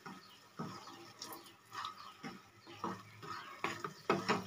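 Wooden spatula scraping and tapping against a nonstick pan while it stirs and breaks up lumps of jaggery melting in ghee, in a string of short, irregular strokes.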